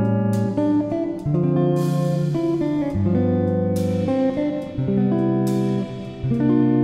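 Instrumental background music, a guitar-led tune with sustained notes and chords changing every second or so.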